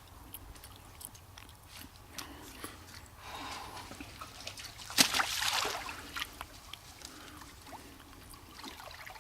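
Water sloshing and trickling with small clicks, and one sharp splash about five seconds in, the loudest sound, followed by about a second of splashing noise.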